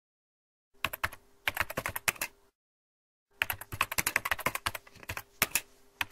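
Typing on a computer keyboard: rapid key clicks in two bursts, the first about a second in and the second starting about three and a half seconds in.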